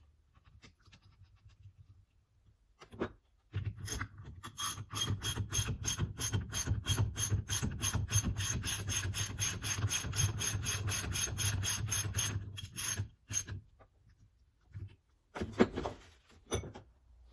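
Ratchet wrench clicking steadily, about four clicks a second, for roughly nine seconds, as a nut on the steering column is run on or off. A few separate metal knocks follow near the end.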